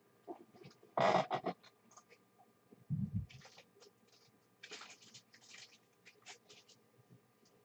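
Hands handling trading cards and their packaging: intermittent rustling and scraping, with a dull bump about three seconds in.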